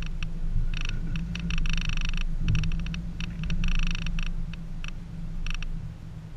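A 2014 Subaru Forester's 2.5-litre flat-four running at low revs while crawling over a rough dirt trail, with irregular buzzing rattles coming and going over the bumps, the longest lasting about half a second each, near two and four seconds in.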